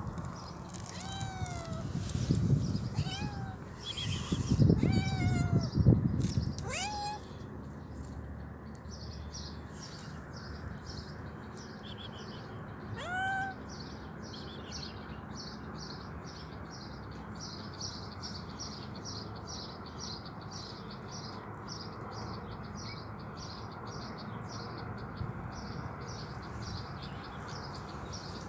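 Stray cat meowing, a run of about six short rising-and-falling meows in the first seven seconds and one more about 13 seconds in. Low muffled noise comes with the early meows, and a faint even ticking, about two a second, runs through the rest.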